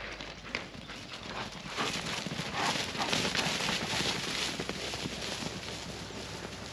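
A herd of yaks galloping past, a dense patter of hoofbeats on grassy ground that grows loudest in the middle as they pass close and then fades as they run off.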